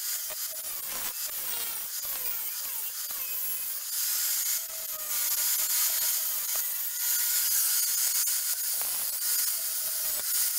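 Angle grinder cutting and grinding spring steel: a steady, high, hissing grind as the disc bites into the metal, its pitch sliding a little as the load changes.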